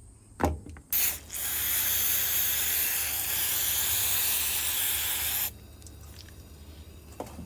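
A spray can hissing in one continuous blast of about four and a half seconds, spraying cleaner onto a small engine's carburetor, then cutting off sharply. A short click comes just before it.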